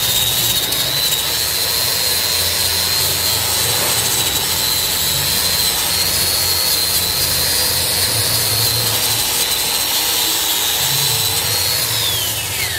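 DeWalt angle grinder grinding the flux-core weld bead on a steel column splice: a steady high motor whine over the hiss of the disc on steel. The whine falls in pitch near the end as the grinder winds down.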